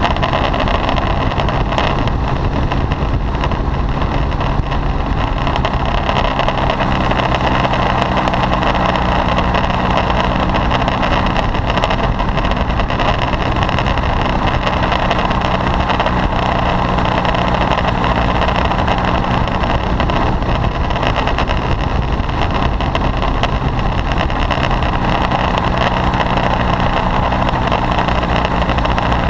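Paramotor trike's engine and propeller running steadily in flight, a constant drone with no change in pitch.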